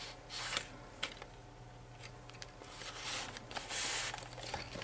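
Soft rustling and light taps of paper and card as a handmade traveler's notebook is handled and turned over. There are short rustles about half a second in and around three seconds in, and a longer one near four seconds.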